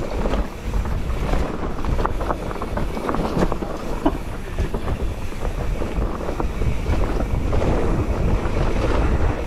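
Mountain bike descending a dirt forest trail at speed: wind rumbling on the microphone over tyre noise on dirt, with frequent small clicks and knocks from the bike rattling over the rough ground.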